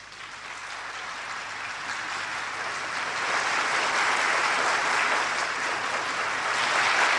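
Large audience of conference delegates applauding, the clapping growing steadily louder.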